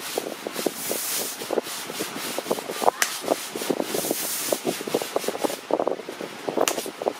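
A long metal palette knife scraping and tapping as it spreads and smooths soft icing on a cake: a run of short, irregular scrapes and clicks.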